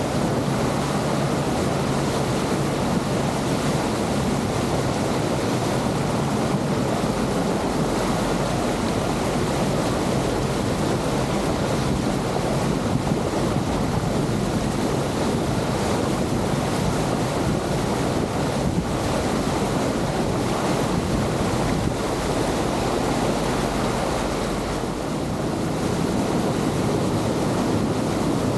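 Steady rush of wind on the microphone mixed with water churning along the hull and wake of a small cabin cruiser under way.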